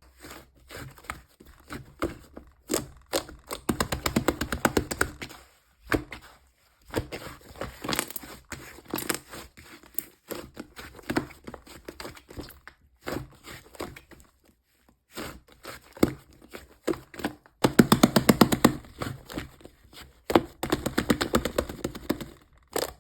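Cloud slime squished and stretched by hand, giving bursts of dense crackling and popping with short pauses between handfuls.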